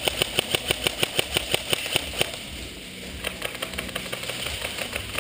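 Airsoft rifle firing a rapid string of sharp shots, about six a second. A second, quieter string of shots follows from about three seconds in.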